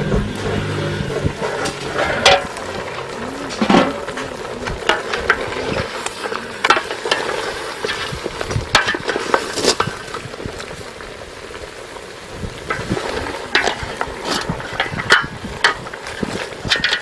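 Chunks of meat frying and sizzling in a metal pot over a wood fire, stirred with a wooden spoon that scrapes and knocks against the pot in irregular clicks. A metal lid scrapes across the pot rim at the start.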